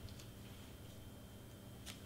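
A few faint ticks and light taps as cardstock butterflies and a plastic glue bottle are handled on a cutting mat, with the sharpest tap near the end.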